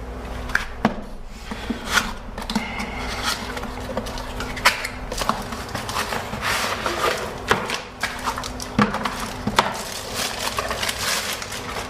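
Irregular light knocks, clicks and rustling of hardware being handled in and around a computer case, over a faint steady hum.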